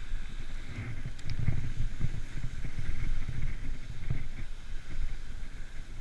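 Wind buffeting the microphone while riding a bicycle: a low, uneven rumble that swells and fades, over a faint steady hiss.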